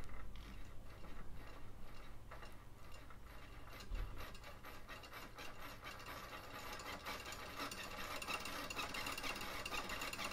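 High-torque metal-gear RC servo rocking a polycarbonate seesaw shaker back and forth, giving a fast buzzing rattle of gears and linkage with one low thump about four seconds in. The rattle grows louder over the last few seconds as the speed is turned up and the seesaw starts to resonate.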